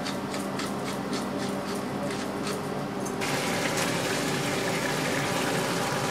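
A pepper mill grinding in short, even strokes, about three a second. About three seconds in it gives way to a steady sizzle of chopped garlic frying in olive oil in a pan.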